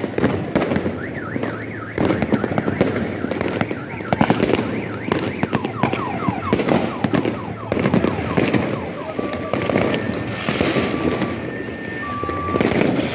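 Firecrackers and fireworks going off in dense, rapid bangs and crackles. A car alarm sounds among them, first with repeated rising and falling sweeps, then with alternating two-note beeps in the last few seconds.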